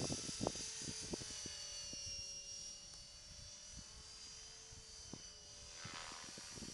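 Esky Belt CP V2 electric RC helicopter flying at a distance: a faint steady whine from its motor and rotor blades that shifts a little in pitch as it manoeuvres, with a few faint clicks.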